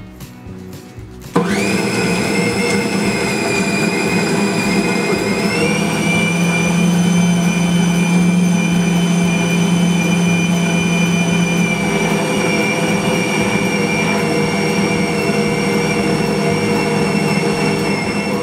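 Tabletop bowl cutter running, its blades chopping salted beef, pork and pork fat into fine sausage forcemeat. The motor starts abruptly about a second and a half in with a loud, steady whine that steps up slightly in pitch a few seconds later.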